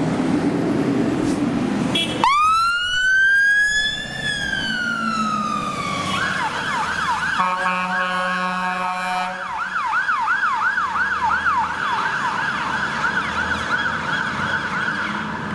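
Emergency vehicle siren coming on over road traffic noise: a wail that rises sharply about two seconds in, then slowly falls, then switches to a fast yelp of rapid repeated rising sweeps. A steady lower tone sounds with it for about two seconds in the middle.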